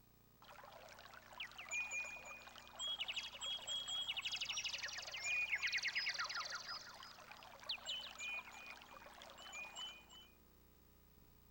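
Karaoke machine's synthesized sound effect of birds chirping over running water, from its Roland SC-88 sound module. It starts abruptly about half a second in and cuts off cleanly near the end.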